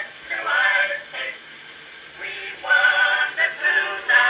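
Singing from an early acoustic recording, a Blue Amberol cylinder played on an Edison phonograph, thin-sounding with no treble. It comes in phrases of held notes with short gaps between them.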